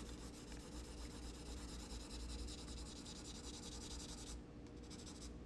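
4B graphite pencil scratching across white sulphite paper in quick, repeated diagonal shading strokes, easing off briefly near the end.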